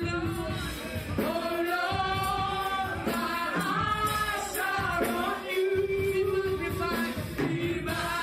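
Gospel worship singing: voices sing together over a steady instrumental accompaniment.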